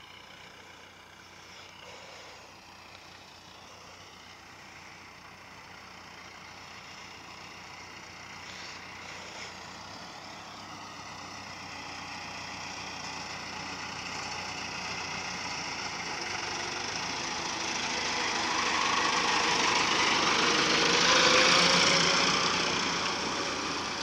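Massey Ferguson 4345 tractor's diesel engine running steadily as it approaches towing a loaded bale trailer, growing louder as it comes closer and peaking about three-quarters of the way through as it passes close by.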